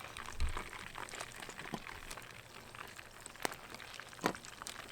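Hot deep-frying oil in a pot over a campfire, faintly bubbling and crackling with scattered sharp pops, and a dull thump about half a second in.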